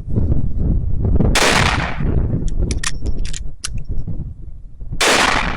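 Two rifle shots about three and a half seconds apart, each a sharp blast that trails off quickly, with a few short metallic clicks between them.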